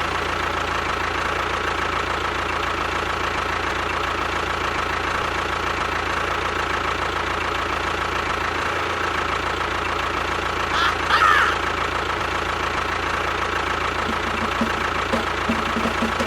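A motor runs steadily and evenly throughout. A brief higher-pitched squeal comes about eleven seconds in.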